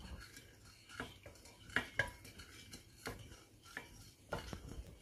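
Wooden spoon stirring sugar and water in a stainless steel saucepan, with irregular light knocks and scrapes of the spoon against the pan.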